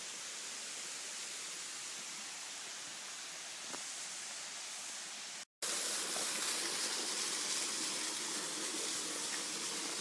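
Steady, even outdoor background hiss with no distinct events. It cuts out completely for an instant about five and a half seconds in, then returns a little louder.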